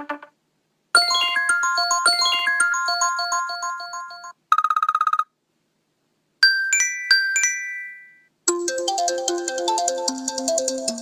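iPhone ringtones played back to back, each cut short with a pause between. A short melody runs for a few seconds, then comes a brief rapid pulsing tone, then a few bright ringing chime notes, and a new melody begins about two-thirds of the way in.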